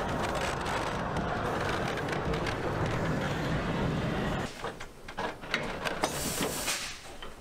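Narrow-gauge steam locomotive and tender moving close by, a steady running noise that drops away about four and a half seconds in. After that come scattered clicks and a short burst of high steam hiss near the end.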